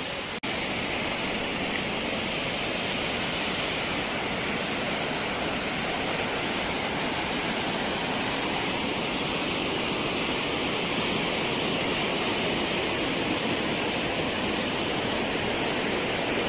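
Steady rush of a mountain waterfall and its rocky stream, water pouring and tumbling over stones.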